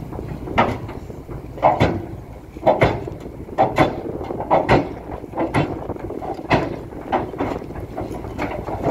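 Hidromek 300LC crawler excavator's steel tracks clanking in irregular metallic knocks, one or two a second, over a steady low engine rumble, as the machine drives onto a lowbed trailer.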